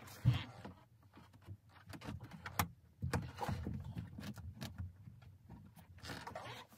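Scattered light clicks and knocks of metal hardware inside a car door being handled, as the door window glass is nudged into position on its loosened mounts.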